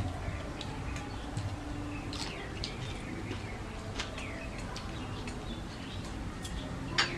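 Mouth sounds of people eating soaked rice by hand: wet chewing and lip smacks, heard as a run of short clicks and chirp-like squeaks, over a low steady hum. One sharper click comes near the end.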